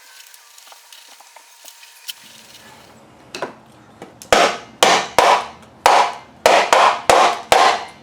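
Paintbrush strokes applying primer to a new wooden garage door panel piece: a run of rubbing strokes on wood, about two a second, starting about four seconds in.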